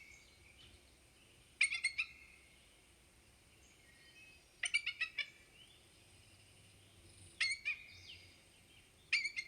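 Bald eagle calling: four short bursts of rapid, high, stuttering chatter, each about half a second long and spaced about three seconds apart.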